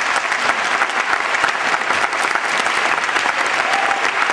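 An audience applauding, a dense steady clapping.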